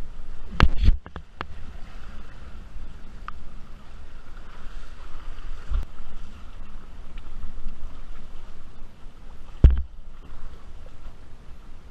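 Wind buffeting an action camera's microphone over splashing water, with a few sharp knocks in the first second and a half and another loud one near the end.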